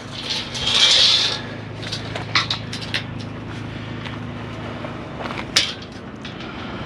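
Long pieces of scrap steel being handled: a metal scrape lasting about a second near the start, then a few separate clanks and knocks, the sharpest about two-thirds of the way in, over a steady low hum.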